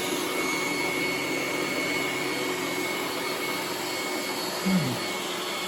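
Roomba S9+ robot vacuum running steadily, a constant suction noise with a steady high whine. About five seconds in, a brief low sound with falling pitch rises briefly above it.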